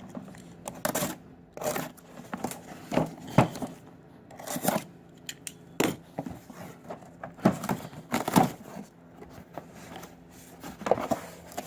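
Packaging being torn open and handled to unpack a set of plastic wrench organizer trays: irregular crinkling, tearing and rustling with sharp snaps.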